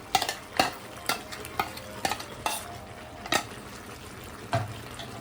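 Chicken frying in a kadai with onion-garlic-ginger paste, stirred with a utensil that scrapes and knocks against the pan about twice a second over a steady sizzle of hot oil.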